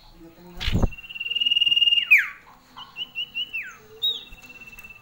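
Female common iora (cipoh) whistling its sirtu-type call: long, steady, high whistles that each end in a sharp fall in pitch, with a quick run of three short falling notes between them. A single thump comes under a second in.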